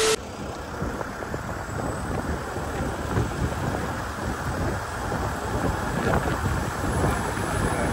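Steady rumble and wind noise of a vehicle on the move, with no distinct events.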